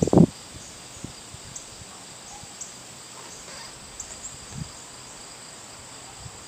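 Insects chirping: short high chirps scattered over a steady high drone. A brief dull thump right at the start is the loudest sound.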